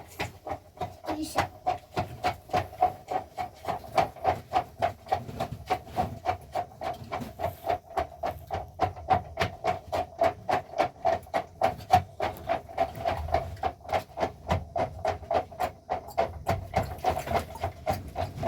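Steady rhythmic knocking, about three sharp strikes a second, each carrying a short ringing tone.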